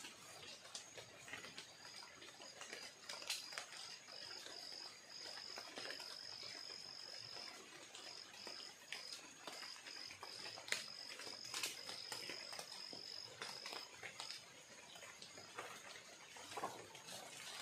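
A high, thin insect trill, cricket-like, in short pulses and longer held notes that stops near the end. Scattered sharp clicks and snaps of brush are heard as someone moves through undergrowth.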